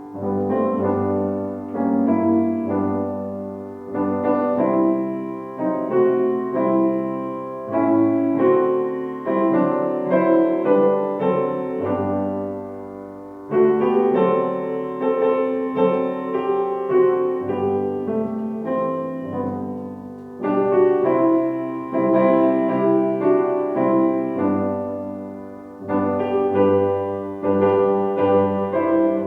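Solo piano playing slowly in phrases of struck, sustained chords, each phrase starting afresh after a short break.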